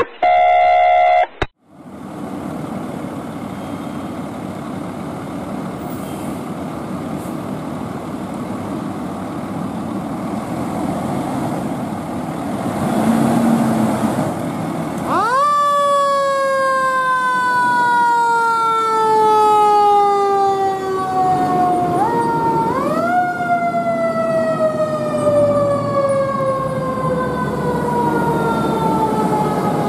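A short two-chord intro jingle, then a fire engine's diesel running as it pulls away, and about halfway through its siren comes on twice, each time rising quickly and then winding slowly down, in the manner of a mechanical siren spun up and left to coast.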